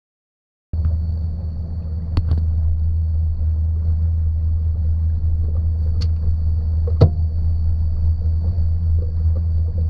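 Mercury 300R outboard on a bass boat running slowly in gear at idle speed, a steady low rumble with a thin high whine over it. It starts under a second in, with a few sharp knocks about 2, 6 and 7 seconds in.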